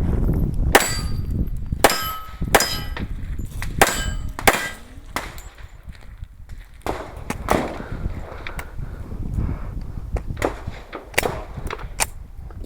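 A string of gunshots at a steady pace, about one every half second to second and a half, at steel targets. Many shots are followed by the bright clang and ring of a steel plate being hit.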